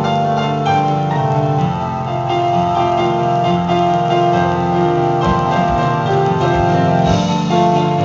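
Live instrumental band playing, with keyboards to the fore in long held notes and chords over bass and drums.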